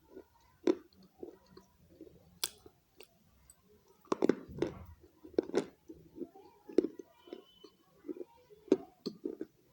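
Close-up chewing and crunching of pieces of baked clay pot: sharp, irregular crunches about once a second with soft chewing between, loudest in a cluster about four to five seconds in.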